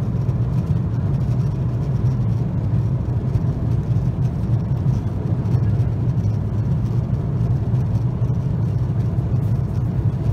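Steady cabin noise inside a Boeing 777-200ER airliner: a constant low drone with a hiss above it, unchanging throughout.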